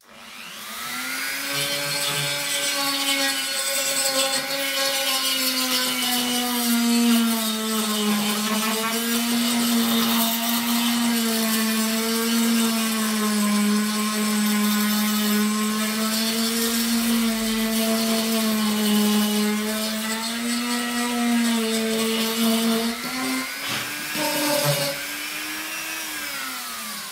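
Parkside PFBS 160 B2 rotary multi-tool running with a sandpaper attachment, sanding: a steady high motor whine with several overtones that spins up at the start, sags in pitch now and then, and winds down near the end.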